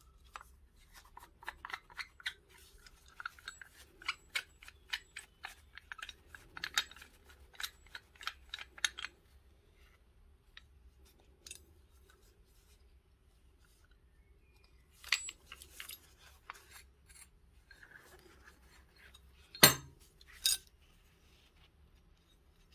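Light metal clicks and scrapes from handling an old Stanley utility knife, coming quickly for about nine seconds, then a pause and a few more. Near the end there is one sharp, loud knock and a last click.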